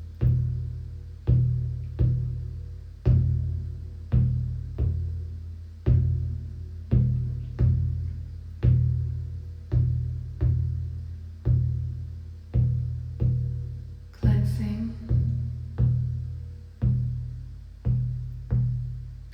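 Shamanic frame drum beaten in a steady, deep pulse of about two strikes a second, each stroke booming and dying away before the next.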